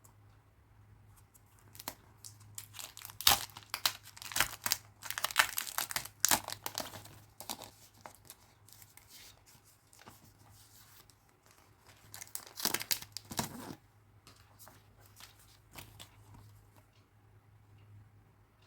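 Packaging being torn and crinkled open by hand: rips and rustling for several seconds, then another short burst of tearing near the end.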